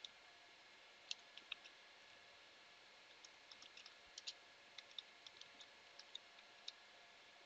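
Faint, irregular clicks of computer keyboard keys being typed, in small clusters, over a quiet hiss of room tone.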